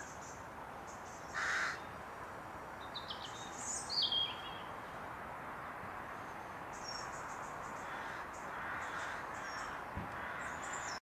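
Birds calling over a steady hiss. A harsh caw-like call comes about a second and a half in, a quick run of loud high chirps about four seconds in, and lighter high chirping near the end.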